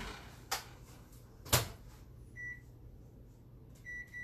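A few sharp clicks, the loudest about a second and a half in, then short electronic button beeps from a cooking appliance's keypad: one beep, then three in quick succession near the end, as a four-minute grill time is set.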